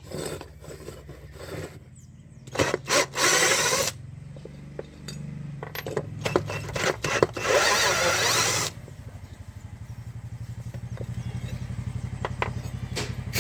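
Hand work with tools on a metal motorcycle clutch basket: scattered clinks and knocks, and two harsh bursts of about a second each, over a steady low hum.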